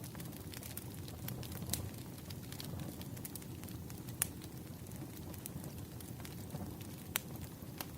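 Campfire burning with a steady low rumble and scattered sharp pops and crackles, the strongest at about 1.7, 4.2 and 7 seconds in.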